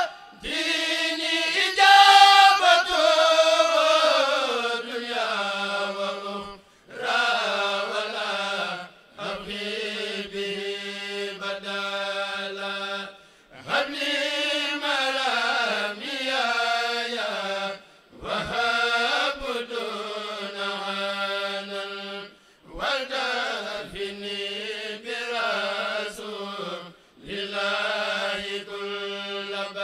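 A kourel, a group of Mouride men, chanting a khassida in Wolof-style Arabic psalmody. It comes in phrases of a few seconds with short breaths between them, and each phrase ends on a long held note.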